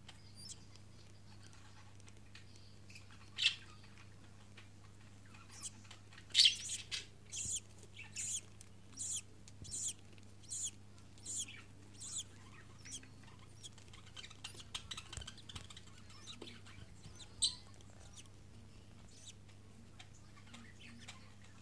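Newborn budgerigar chick cheeping while the hen feeds it: short high peeps in an even series, a little more than one a second, for about six seconds in the middle, with fainter scattered peeps later. Two sharp clicks and a steady low hum are also heard.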